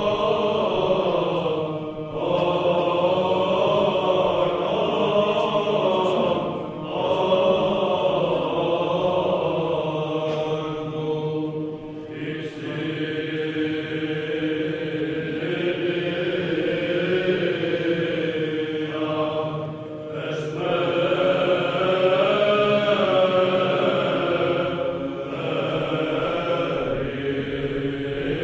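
Orthodox chant: voices singing a slow, long-held melody, with several short pauses for breath.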